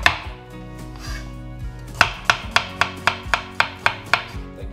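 Chef's knife slicing half an onion into thin strips on a wooden cutting board, the blade knocking the board with each cut. There is a strike at the start, a short pause, then a steady run of about four cuts a second from about two seconds in.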